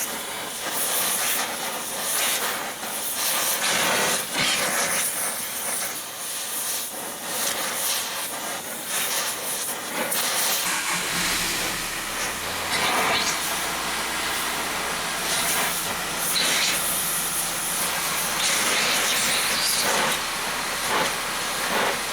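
Gas torch hissing steadily as it heats an aluminum engine mount to loosen a bolt with a nut welded onto it. There are a few brief clicks and knocks, and a low hum joins about halfway through.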